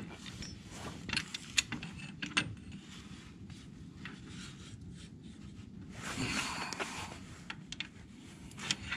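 Scattered light metal clicks, knocks and scrapes as the tractor's three-point lift arm is worked back onto its cross bar, with a louder scrape about six seconds in.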